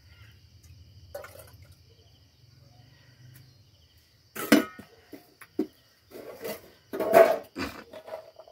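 Enamel tableware knocking and clattering against cooking pots: a cup dipped into a clay pot, then an enamel plate scooping cooked githeri of maize and beans out of a metal cooking pot. Scattered light knocks at first, then a run of louder clatters and scrapes in the second half, loudest near the end.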